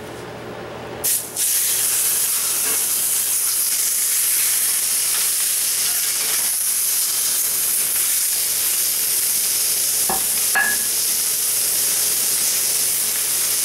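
Oiled sirloin steak searing in a cast iron skillet heated to about 600 °F: a steady, loud sizzle starts about a second in as the meat hits the pan and holds throughout.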